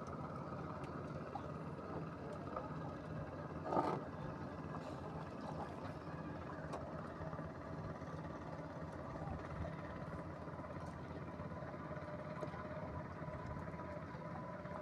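A steady low motor hum, like a boat engine running at a distance. There is a brief louder rush of noise about four seconds in.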